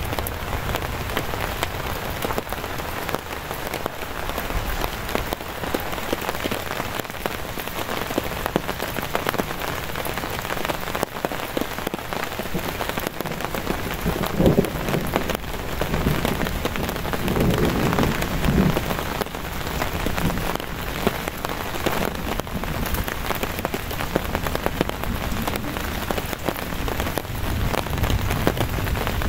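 Heavy, steady rain falling on the tarp shelter and the forest, a dense hiss of drop impacts. A few louder low swells come about halfway through.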